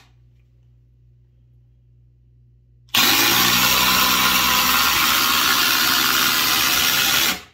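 A DeWalt DCF840 and a Milwaukee M18 Fuel Gen 3 (2853) impact driver hammering together as they drive long screws into stacked lumber. The sound starts abruptly about three seconds in, runs loud and steady for about four and a half seconds, and stops suddenly.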